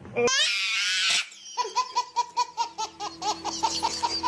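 A baby laughing hard: a long high squeal, then a run of quick belly laughs, about four a second.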